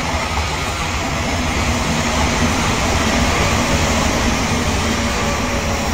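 Real Odakyu 2000 series electric train running, a steady rumble of wheels and motors on the rails.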